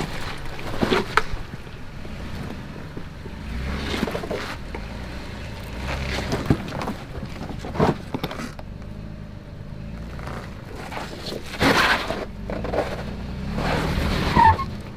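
Toyota 4Runner crawling slowly over an off-road obstacle trail: a low engine rumble with repeated knocks and scrapes from the tyres and body working over rocks and logs.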